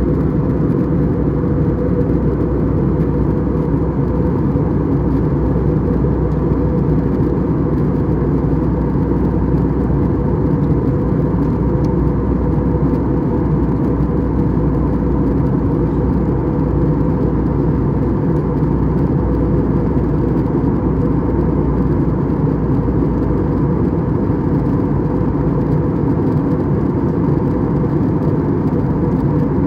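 Steady cabin drone of an Airbus A320-200 in flight, heard from a window seat: continuous engine and airflow noise with a faint held tone running through it.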